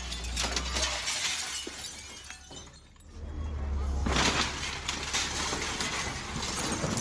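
Demolition debris being smashed and broken up: a run of crashing, clattering impacts with a glassy shattering edge, easing off briefly mid-way and then starting again more densely.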